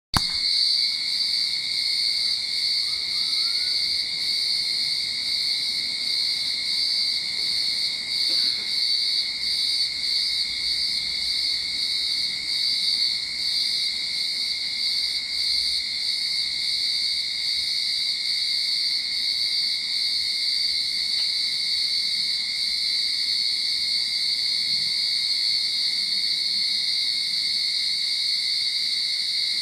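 Cicadas singing in chorus: a loud, steady, unbroken high-pitched drone.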